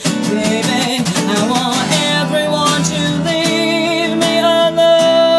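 Live performance of a dirty, bluesy song with guitar, played without lyrics at this point, with a long wavering melody note held from about four seconds in.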